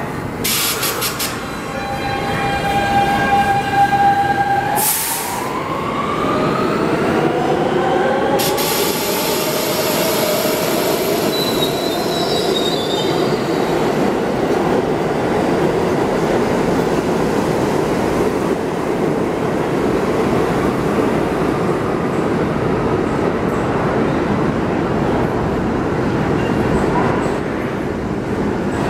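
R68A subway train pulling out of the station. Its traction motors hum steadily, then give a whine that rises in pitch as the train gathers speed, and this gives way to a long steady rumble of the cars running over the rails.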